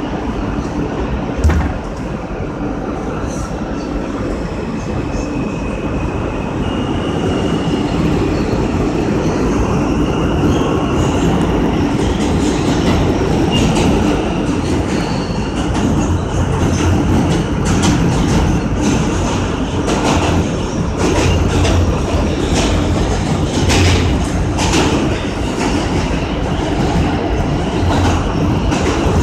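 R160 subway train running through a tunnel, heard from inside the cab: a steady rumble with a faint electric whine that climbs in pitch through the first half. In the second half come many clicks and clacks from the wheels over the rails.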